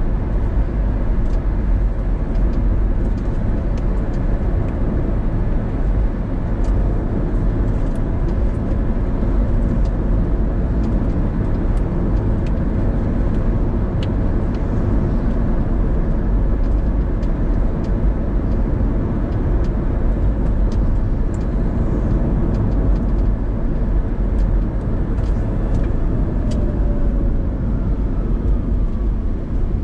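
Car driving along city streets, heard from inside the cabin: steady engine and tyre-on-road rumble, with a few faint ticks.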